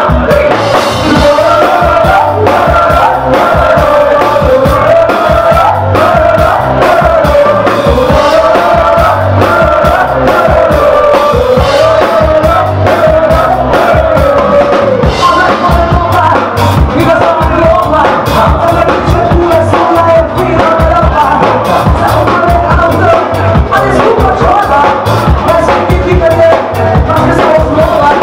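Live pop-folk music played loud, with a steady driving beat and a woman singing the melody over it.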